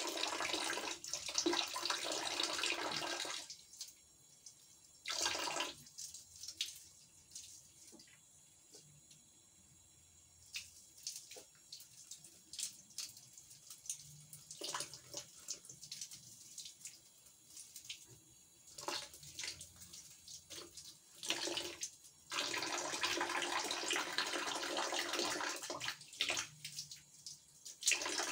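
Thin stream of water from a shower head splashing into a plastic bucket of water. It is loud for the first few seconds and again for the last several, with a long softer stretch in the middle broken by scattered drips and splashes.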